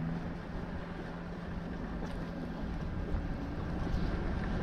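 Wind rushing over the microphone while skiing downhill, with a low steady hum through most of it that drops out near the end as the rush grows louder.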